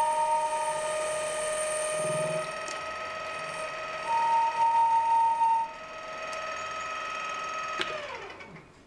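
Metal lathe turning the outside edge of an aluminium disc, its drive whining steadily, with a higher singing tone that comes in twice as the tool cuts. Near the end the whine falls in pitch and fades as the lathe spins down.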